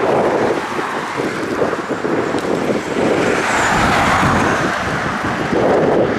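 Wind buffeting the microphone, with a car passing by on the road, loudest about four seconds in.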